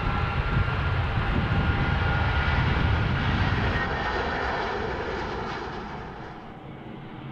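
Aircraft engines at takeoff power: a deep rumble with a high whine over it. The rumble fades away over the second half as the plane climbs away.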